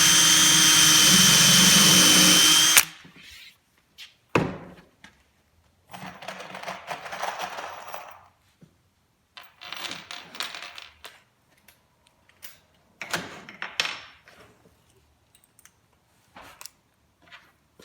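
Power drill with a countersink bit running at full speed for about three seconds, pre-drilling a screw hole in a melamine cabinet panel, then stopping suddenly. Scattered handling knocks and clatter follow.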